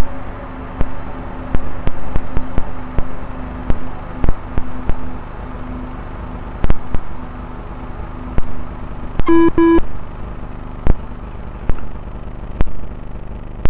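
Small RC car driving over stony ground: a steady running hum broken by irregular knocks and clicks. Two short electronic beeps come close together about nine and a half seconds in.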